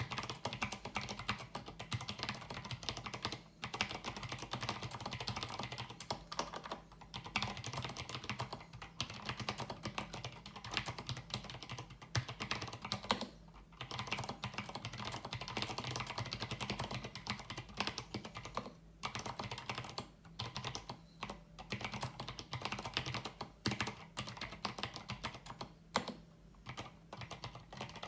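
Fast, continuous typing on a mechanical keyboard with Signature Plastics SA keycaps over Cherry MX switches, a dense clatter of key strikes broken by a few brief pauses.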